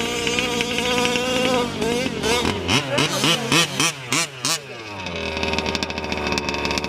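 Two-stroke petrol engine of a Losi 5ive-T 1/5-scale RC truck running at a steady high pitch, then revved in a quick series of throttle blips from about two seconds in, settling to a steady idle.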